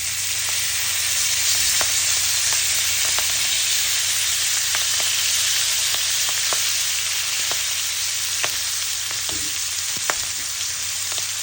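Salmon sizzling on a hot, freshly oiled grill: a steady hiss with scattered sharp pops and crackles of spitting oil.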